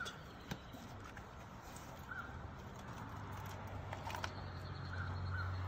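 Faint outdoor background: a few short bird chirps, a couple of light clicks, and a low steady hum that comes in about halfway through and grows slightly louder.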